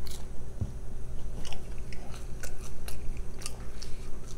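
Chewing a mouthful of French fries, with many small, scattered mouth clicks and soft crunches.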